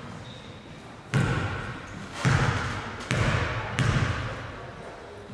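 Basketball bouncing on a gym floor about four times at uneven intervals, each thud trailing off in the hall's echo.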